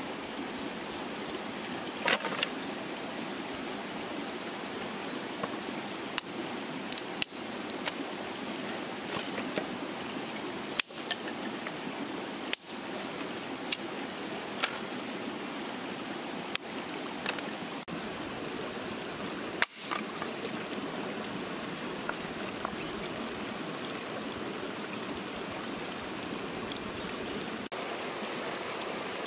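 A stream running steadily over rocks, with scattered sharp clicks and knocks from dry sticks and stones being handled.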